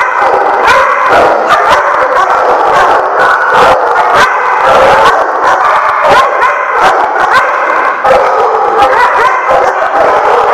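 Several dogs barking and yipping over one another without a break, loud and dense.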